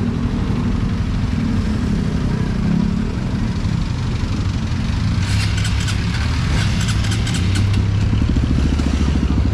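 Motorcycle engine running steadily, getting a little louder near the end. A burst of rapid clattering clicks comes in about five seconds in and lasts nearly three seconds.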